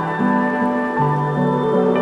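Instrumental passage of a gentle song, with sustained pitched notes moving in steps and a faint patter of rain beneath.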